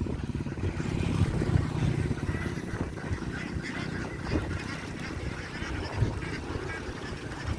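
A flock of ducks calling and quacking over one another, over a constant low rumble.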